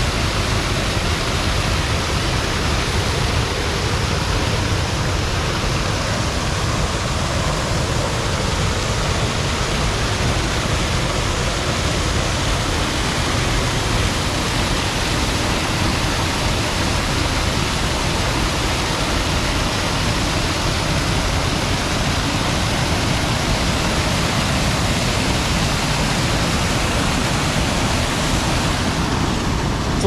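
Small creek waterfall, about 10 to 15 feet wide, with water falling and rushing in a loud, steady, unbroken wash, running strong after recent rain.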